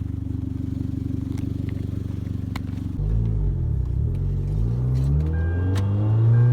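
Hyundai Genesis Coupe's turbocharged four-cylinder running steadily, then, about three seconds in, pulling under wide-open throttle with its pitch climbing steadily. It is pulling weakly without building boost because the turbo charge pipe is disconnected.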